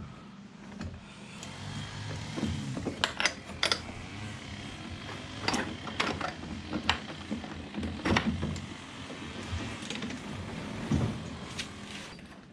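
Scattered metal clicks and knocks of a folding boat launch wheel being set to its lowest height position in its transom bracket, over a low steady hum.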